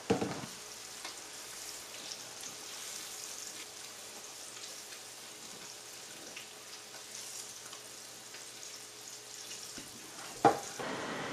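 Battered crappie frying in oil in a pan: a steady sizzle with fine crackling. There is a short clatter at the start and a sharper, louder knock near the end.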